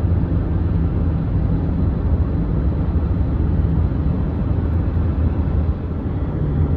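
Steady low rumble of a running vehicle, with a low droning hum and no clear change.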